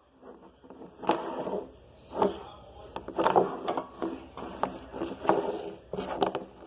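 Plastic Rubik's cube being turned rapidly in a timed solve: the layers clack and scrape as they rotate, in quick bursts about once a second.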